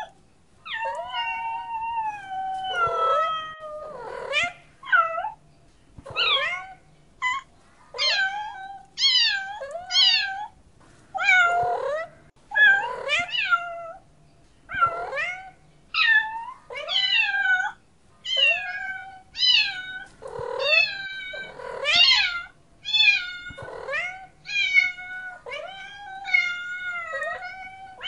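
A domestic cat meowing over and over, about one meow a second, each call bending up and down in pitch.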